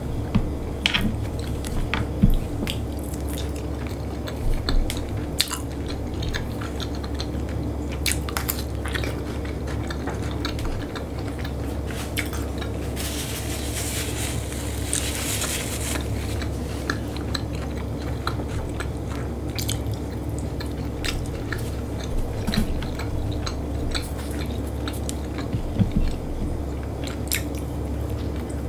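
Close-up mukbang eating sounds: chewing and biting with wet mouth clicks and the odd clink of cutlery or dishes, over a steady low hum. A few seconds of hissing rustle come about halfway through.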